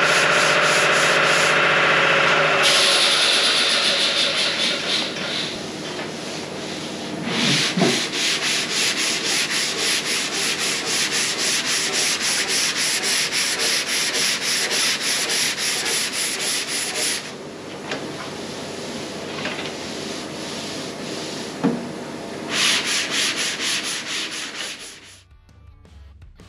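Sanding on car bodywork, likely abrasive paper over body filler, in fast, evenly repeated strokes; it stops near the end.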